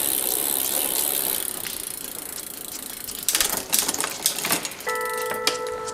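Bicycle drivetrain turning in a work stand: the chain runs over the cassette and through the Shimano Deore rear derailleur with a steady hiss while a rag wipes it. A few irregular clicks follow about halfway through, and a steady tone comes in near the end.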